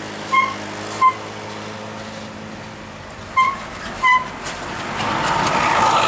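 A coach bus engine running steadily at low revs, with four short high beeps in two pairs. Near the end the engine noise swells as the bus pulls away.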